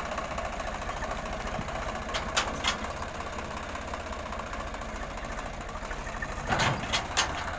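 Swaraj 855 FE tractor's three-cylinder diesel engine running steadily under load while pulling a tillage implement through the field. A few sharp clicks come about two and a half seconds in, and a short cluster of louder knocks near the end.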